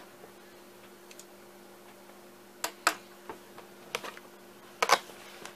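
Phone retail box being handled for unboxing: a few separate sharp clicks and crinkles of cardboard and plastic packaging, the loudest near the end.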